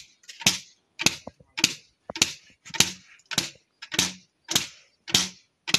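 A hand cotton-carder's bow having its string struck with a wooden mallet. It gives sharp twanging strokes in a steady rhythm, about one every 0.6 seconds.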